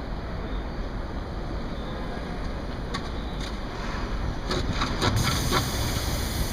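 Steady low outdoor rumble of wind on the microphone and street noise, with a cluster of short, sharp sounds about four to five seconds in.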